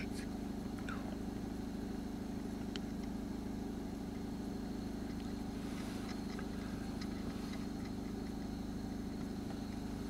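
A car engine idling with a steady low hum, with a few faint ticks.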